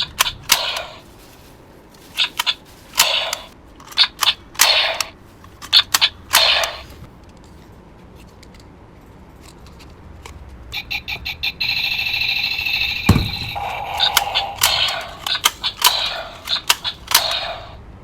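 Electronic toy gun sound effects: short zapping shot sounds fired in quick bursts. Around the middle comes a longer, steady electronic tone with a high whine and one low thump, then more shot bursts.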